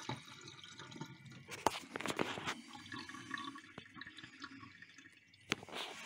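Water dripping and trickling in a stainless steel kitchen sink just after the faucet has been shut off, with a few light clicks and knocks scattered through it.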